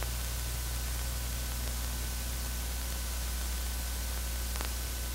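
Steady hiss with a low hum underneath: the background noise of an old film soundtrack, with no other sound apart from a faint click near the end.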